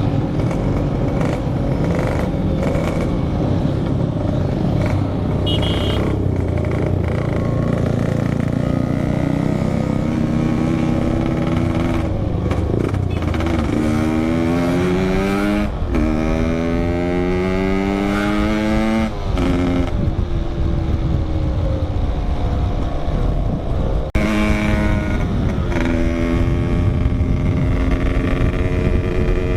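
Yamaha RX-King single-cylinder two-stroke engine with a 'packing power' exhaust, very loud, being ridden. It holds a steady note at first. From about the middle it revs up again and again, the pitch climbing and dropping back abruptly at each of about four gear changes.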